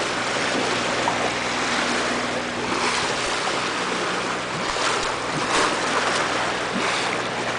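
Steady rush and splash of water at a catamaran's bow as it cuts through calm sea, with a few brief louder surges. A faint low steady hum runs underneath.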